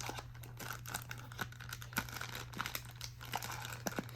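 Cardboard box packaging being handled, with scattered crinkles and light clicks over a steady low hum.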